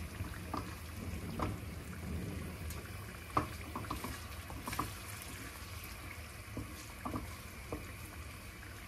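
Wooden spoon stirring a thick tomato-paste sauce in a pan, the sauce bubbling quietly, with a few light clicks of the spoon against the pan, the sharpest a little over three and about five seconds in.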